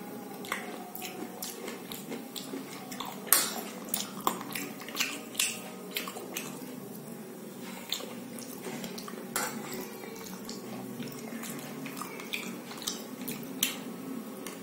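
Metal spoon clinking and scraping against a bowl of kheer while a person eats, with mouth sounds of eating: a scattered series of sharp clicks, the loudest about three seconds in.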